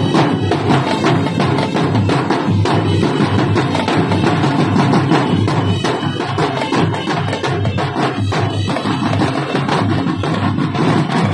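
Marching drumline playing together, many sticks striking the drums in a fast, steady rhythm.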